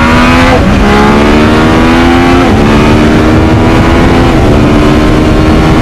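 Loud motorcycle engine accelerating through the gears. The pitch climbs, drops sharply at each of three upshifts (about half a second, two and a half, and four and a half seconds in), then climbs again, over a steady rush of wind noise.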